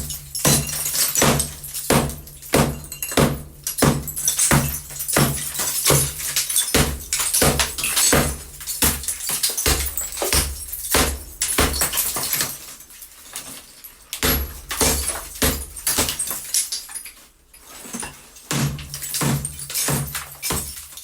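Hammer blows smashing a wall, sharp repeated impacts about two a second with breaking debris, pausing briefly about three-quarters of the way through before resuming.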